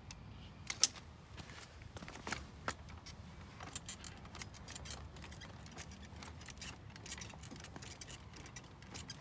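Light clicks and small metallic rattles from a homebuilt tilting electric trike as its suspension is flexed while the trike is tilted, with one sharp click about a second in.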